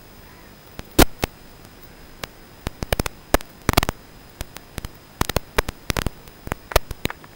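Steady static hiss from an analog FPV video feed's recorded audio, broken by an irregular run of sharp crackling clicks starting about a second in and stopping just before the end, the loudest near the start.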